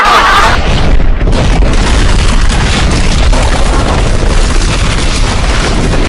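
Deep, rumbling boom sound effect, held for about five seconds and then cut off abruptly. A brighter hissing noise carried over from the moment before stops about half a second in.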